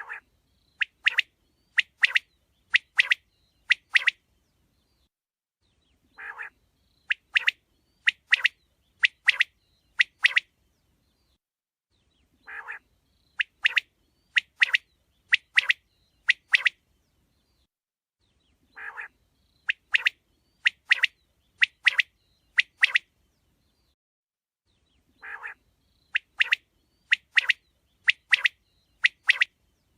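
Quail calling: a low, rough note followed by about seven sharp, high notes over three seconds, the phrase repeating about every six seconds, five times in all.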